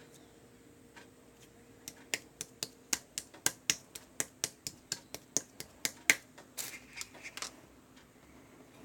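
Slime being pressed and squeezed by hand, giving a run of sharp popping clicks of trapped air, about four a second, then a short softer crackle.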